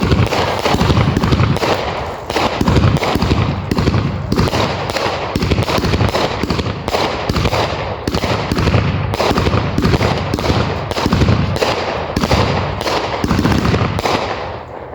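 Consumer fireworks going off in a rapid, continuous barrage of sharp bangs, several a second, each trailed by a short echo.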